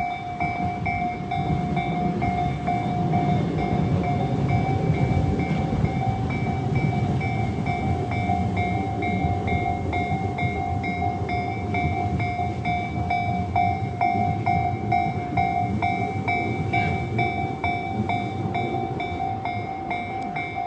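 Japanese railway crossing warning bell ringing in a quick, even, repeating pulse while the barrier is down for a train. Under it a train rumbles along the rails, loudest in the first half.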